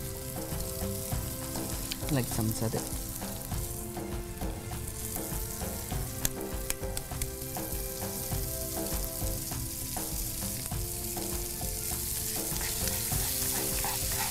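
Spiced corn kernels and onion-masala sizzling in a frying pan over a gas flame that has just been turned up, with a spatula now and then clicking and scraping against the pan as it stirs.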